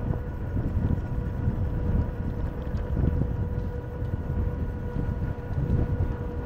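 A low, gusting rumble of wind and road noise on the microphone of a camera moving along a street, with a steady high whine over it.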